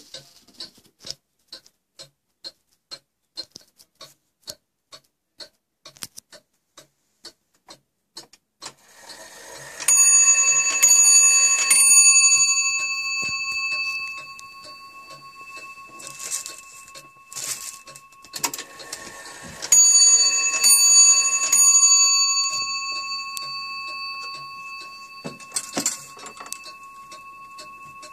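Antique two-train fusee bracket clock ticking steadily. Then its striking train whirs and the hammer strikes the bell a few times, and about ten seconds later a second short run of bell strokes follows. Each run is left ringing and slowly dies away, with a few brief knocks in between.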